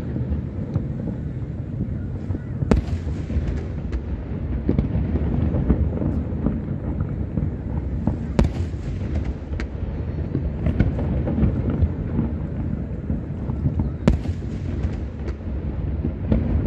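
Aerial fireworks shells bursting: a continuous low rumble of booms and their echoes, with sharper cracks standing out about three seconds in, about eight seconds in and again near the end.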